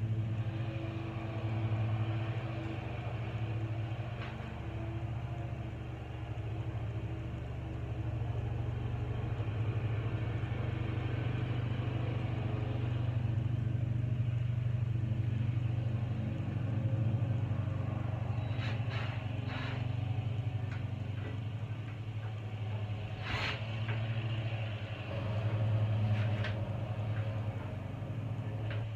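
An engine running steadily with a low, even hum, with a few light clicks about two-thirds of the way through and one sharp knock shortly after.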